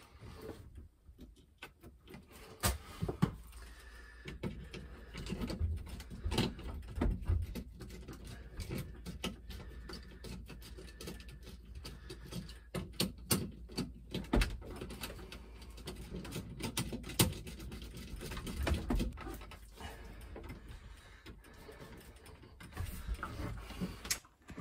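Irregular small clicks, knocks and rustles of cables and a screwdriver being worked into the screw terminals of a solar charge controller as the wires are fastened.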